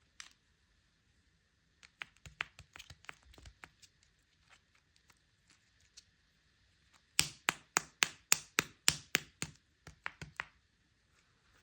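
Sharp taps and clicks of hands handling a candy egg on a surface: a scattered run of light taps, then about a dozen louder taps in quick succession, about four a second.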